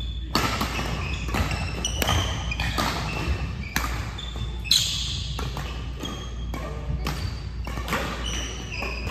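Badminton rackets striking shuttlecocks across several courts, sharp hits coming every half second or so, with short high squeaks of sneakers on the gym floor, all echoing in a large hall.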